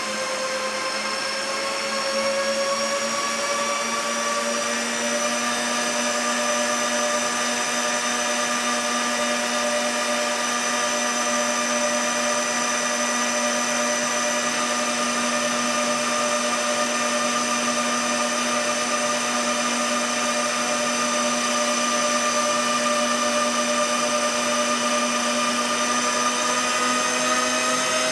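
A motor running steadily with a whine made of several tones that slowly rise in pitch, heard as an abnormal sound.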